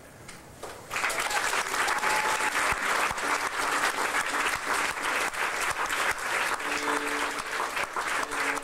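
Audience applause, breaking out about a second in as a piece ends and holding steady; near the end two bowed string notes are held under the clapping.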